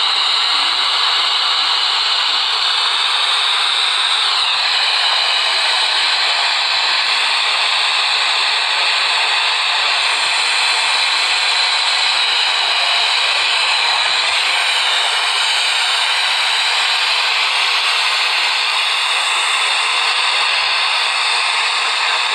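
Steady, loud hiss of radio static from a weather radio receiver with no broadcast coming through, with a faint falling whistle about four seconds in.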